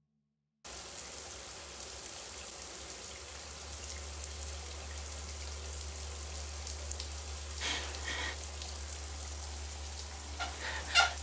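Shower water running steadily, cutting in abruptly about half a second in, with a low steady hum underneath. Two short, sharper sounds come past the middle, and a louder cluster of short sounds near the end.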